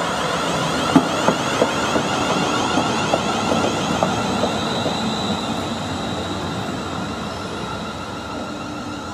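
Class 360 electric multiple unit running alongside the platform, its wheels clicking sharply over rail joints several times in the first few seconds. The sound then eases off as the train draws away along the platform.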